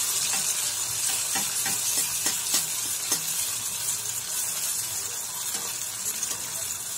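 Appam batter deep-frying in hot oil: a steady high sizzle with scattered small crackles.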